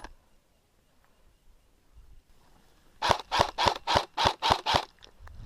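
Airsoft gun firing a quick string of about seven sharp semi-automatic shots, roughly four a second, starting about three seconds in, after a single sharp click at the start.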